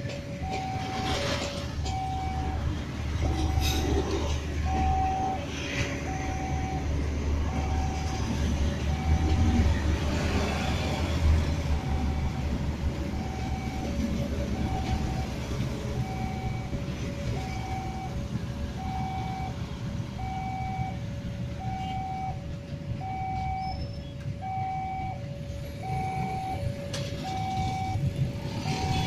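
Railway level-crossing warning alarm sounding a repeating high-low two-tone chime while a passenger train passes over the crossing. The train's low rumble is strongest in the first half and then fades as the train moves away.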